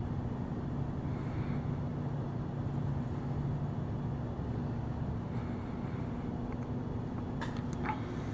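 Steady low background rumble with a faint steady hum running through it, and a few faint clicks near the end.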